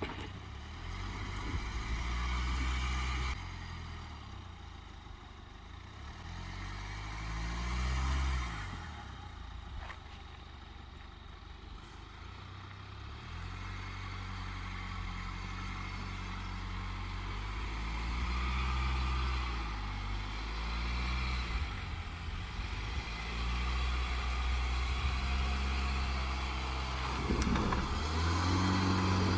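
Jaguar F-Pace SUV engine pulling the vehicle over rough dirt and gravel. The engine note rises and falls several times as the throttle is opened and eased off, and it gets louder near the end.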